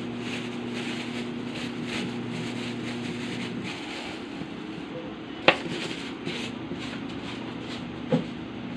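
Butter sauce and shrimp simmering in a metal pan with faint irregular crackling, under a steady low hum that stops about a third of the way in. A single sharp click comes about halfway through.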